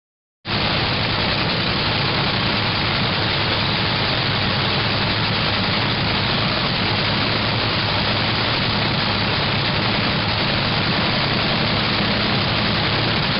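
Dragster engine idling steadily, cutting in abruptly about half a second in.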